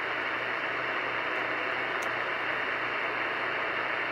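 CB radio receiver on channel 28 with no station coming through: a steady hiss of static, with a faint low hum and a single brief click about two seconds in.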